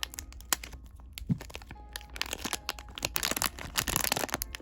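A blind-box package being opened by hand: irregular crinkling and crackling of wrapping, with scattered sharp clicks and light tearing, thinning out briefly about a second in.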